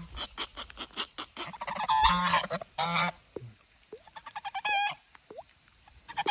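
Domestic geese honking in short calls, three or four times, after a quick run of sharp clicks in the first second and a half.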